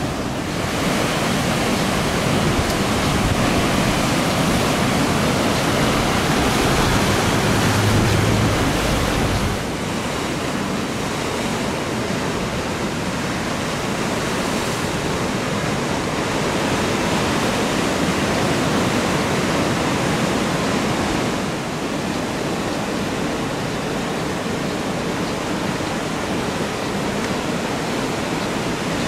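Ocean surf breaking and washing, a steady rush of noise that eases a little about ten seconds in.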